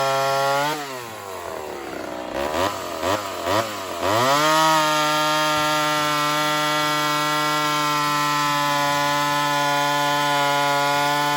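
Ported Homelite Super XL Auto two-stroke chainsaw at full throttle. It drops to idle under a second in, is blipped three times, then revs back up about four seconds in and holds a steady high pitch.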